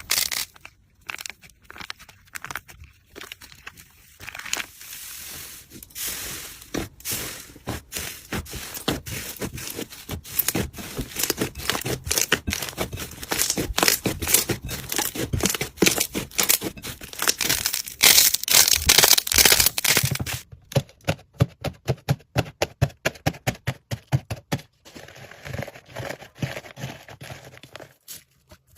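Slime being squeezed and stretched by hand, giving dense crackling and popping clicks. About two-thirds of the way in, the sound changes to a duller, lower run of squishing pops.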